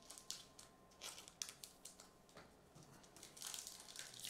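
Faint flicks and rustles of trading cards being handled, then crinkling of a foil card-pack wrapper being torn open, louder over the last second.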